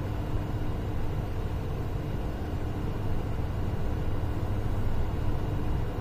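Steady low background rumble with a faint, even hum and no distinct events.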